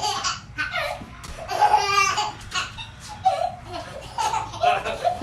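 Laughter in short repeated bursts, a baby's laughter among it.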